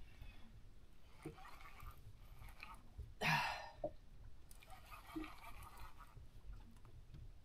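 Quiet sounds of an angler fighting a fish from a small boat: a few faint knocks and one short, loud breathy burst about three seconds in.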